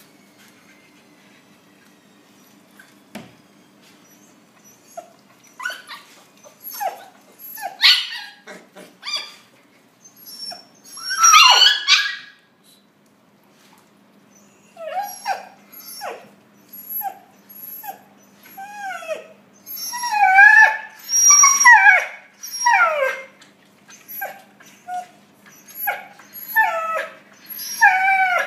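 A litter of husky puppies whining and yelping: many short, high calls, a lot of them sliding down in pitch. They start a few seconds in after a quiet opening and come thick and loud in places.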